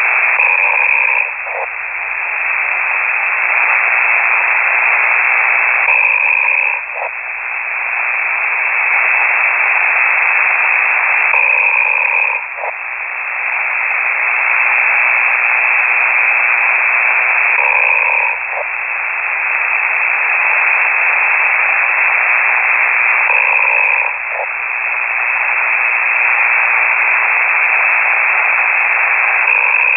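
A ham radio operator's snoring heard over a shortwave radio receiver: a hoarse, hissy sound squeezed into the narrow radio voice band. It comes in a slow breathing cycle, swelling and then dropping off briefly about every six seconds.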